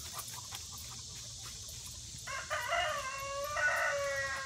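A rooster crowing once, a drawn-out call of about two seconds that starts about halfway through and holds level before it stops. Before it there is only faint rustling.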